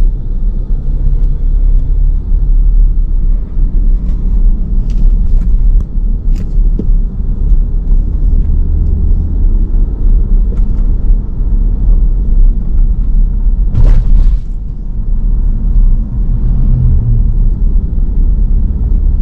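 Low, steady rumble of a car driving: road and engine noise, with a brief louder rush about fourteen seconds in.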